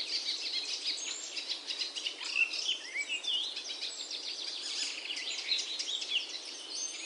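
Small birds chirping and twittering in a dense chorus of many short, quick calls.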